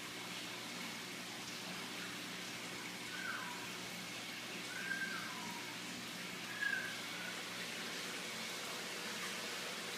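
Steady hiss and hum of room or enclosure equipment, with three short falling chirps about three, five and seven seconds in, the last the loudest.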